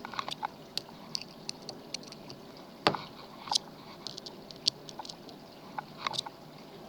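Irregular small metallic clicks and scratches of a lock pick and tension wrench working the pins of a lock, with a sharper click about three seconds in.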